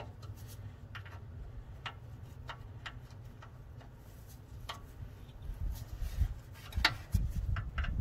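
Scattered light clicks and taps of an Allen wrench and metal drain-valve fittings being handled, over a low rumble that grows louder in the last few seconds as the hand reaches in to the valve.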